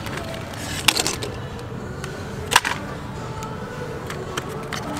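Hard plastic lure packages clicking and rattling against metal pegboard display hooks as they are handled, with two sharp clicks, about a second in and again past the middle, over a steady background hum.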